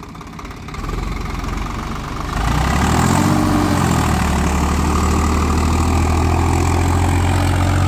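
Swaraj 843 XM tractor's three-cylinder diesel engine pulling off with a heavy disc harrow in the soil. It picks up revs and loudness about two and a half seconds in, then runs steady under load.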